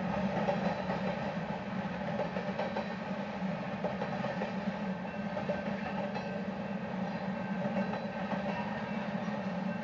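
Mixed freight train's cars rolling past at steady speed: steel wheels running on the rails, a steady rumble with no let-up.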